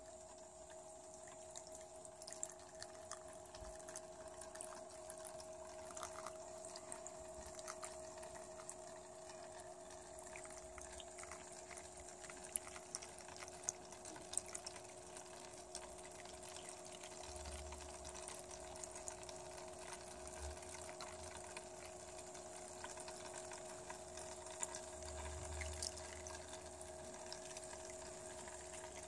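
Water trickling and dripping from the feed tubes of a small solar-powered hydroponic pump system, circulating compost tea. A faint steady hum runs under it, with scattered small drips.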